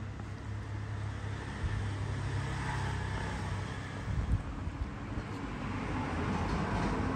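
Steady low rumble under a soft hiss, swelling a little now and then.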